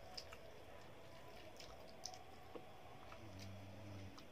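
Faint eating sounds: a few soft clicks as rice is mixed by hand on a metal plate and eaten, with a short low hum near the end.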